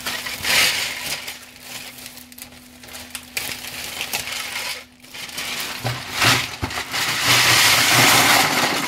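A big plastic bag of Lego-compatible plastic track pieces and bricks rustles as it is handled, then is poured out into a cardboard box. The pieces clatter loudly for the last few seconds, a sound almost like Lego bricks.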